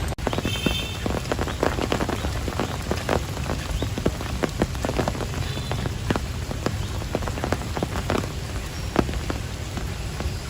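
Steady rain with many close, sharp drops pattering on a surface over a low, even wash of rainfall. A momentary dropout interrupts the sound just after the start.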